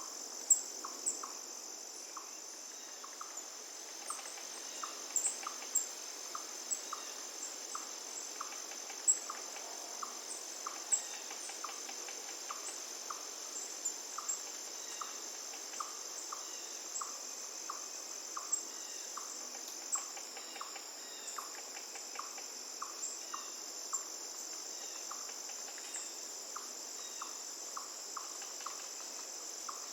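Forest river ambience: a steady high-pitched chorus of trilling insects, with a short note repeating about twice a second and scattered brief chirps, over a faint hiss of running water.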